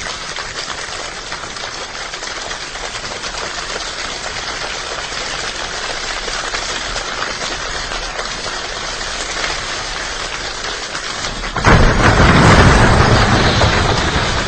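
A large choir imitating a rainstorm with body percussion: a dense, crackling patter of many small hand sounds that slowly swells. About twelve seconds in it jumps suddenly to a much louder, deeper surge, the thunder of the imitated storm.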